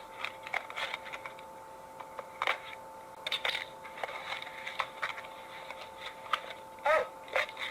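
Cardboard and packing material being handled and pulled open: scattered small clicks, crinkles and scrapes over two faint steady tones, with a louder brief squeaky sound about seven seconds in.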